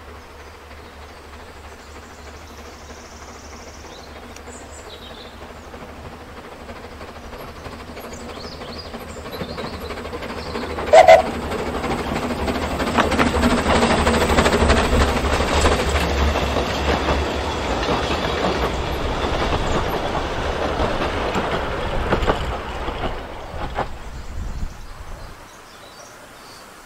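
Talyllyn Railway narrow-gauge train approaching and passing close by: a rumble builds, with one short, very loud sound about eleven seconds in. The carriages then go past with wheels clicking over the rail joints, until the sound cuts off abruptly near the end.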